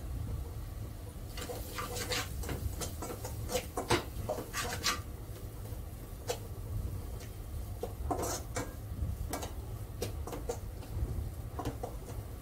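Metal spatula scraping and clinking against a stainless steel pot while stirring spices into a thick masala base, in irregular bursts, over a steady low hum.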